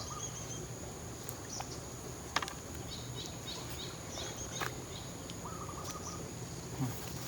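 Outdoor rural ambience: a steady high-pitched insect drone with short bird chirps and calls scattered through, and a few faint clicks.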